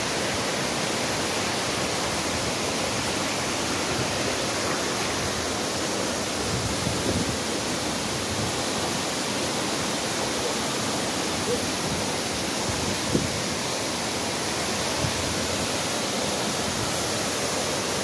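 Waterfall pouring down a high rock face into a plunge pool: a steady, even rush of falling water.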